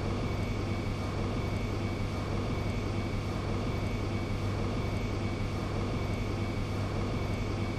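Steady low hum with even background noise and a faint, steady high-pitched whine: room tone.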